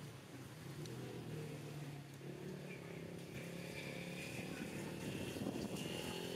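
A motor engine running steadily, growing louder toward the end, with a thin high whine joining about two and a half seconds in.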